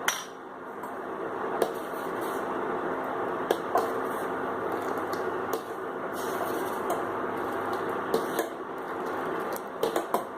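Steady hiss of a pan of milk boiling hard on the stove. Now and then a metal utensil clicks sharply against the pan, a few times near the end.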